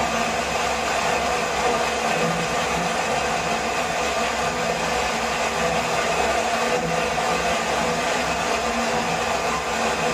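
Waterfall rushing steadily, a constant loud wash of falling water.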